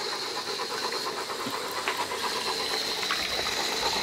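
Garden hose running steadily into a foldable dog pool as it fills, a continuous hiss of flowing water.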